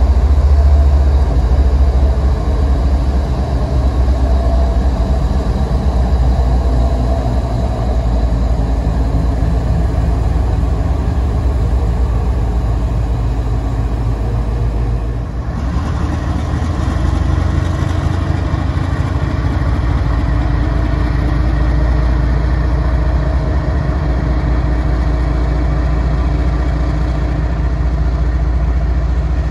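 Diesel locomotive engines running steadily, a deep, even engine sound that briefly dips about fifteen seconds in.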